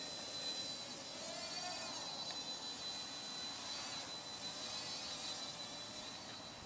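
Blade Nano QX micro quadcopter's four small motors and propellers whining in flight, the pitch wavering up and down as the throttle changes.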